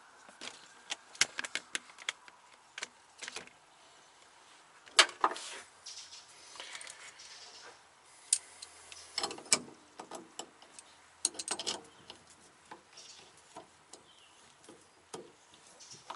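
Metal wrenches clicking and clinking on the top nut of a rear coilover shock mount as it is tightened, with one wrench holding the nut in place. The clicks and taps come at irregular intervals, and the loudest is about five seconds in.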